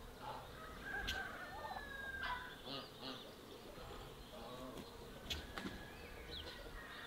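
Farmyard poultry calling faintly, mixed with short chirps of small birds and a few soft clicks.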